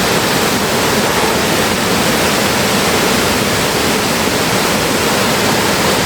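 Río Cuervo waterfalls: water rushing loudly and steadily as it falls.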